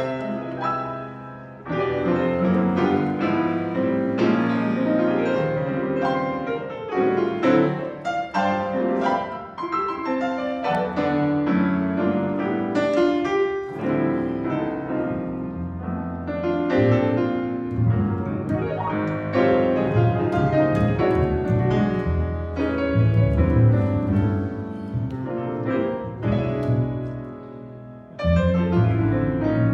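Live jazz piano trio playing: a grand piano carries the tune in rippling runs and chords over upright bass and drums, with a brief dip in the playing near the end before it picks up again.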